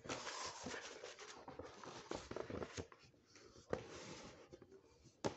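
A page of a hardcover picture book being turned: a soft paper rustle and rub that eases off about three seconds in, followed by a few light taps.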